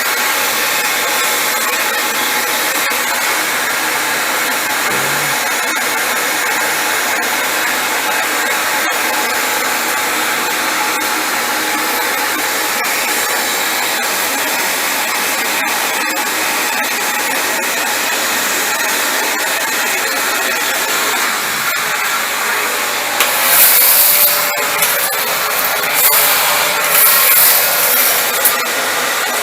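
Vacuum cleaner running steadily, with a few brief louder rushing surges near the end.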